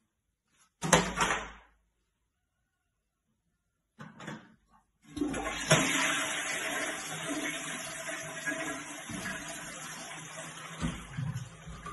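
A short loud burst about a second in, then a toilet flushing from about five seconds in, water rushing into the bowl and slowly dying away.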